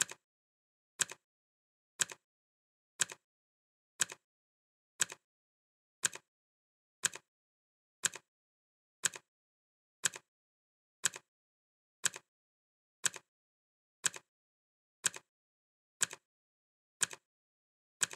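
Clock ticking steadily once a second, each tick a sharp double click with silence between.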